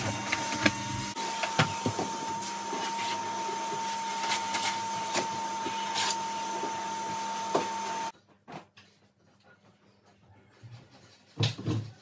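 Canister vacuum cleaner running steadily, its motor giving a constant whine, with scattered clicks as the nozzle works over the carpet; it cuts off abruptly about eight seconds in. After that, only faint clicks and a single knock near the end.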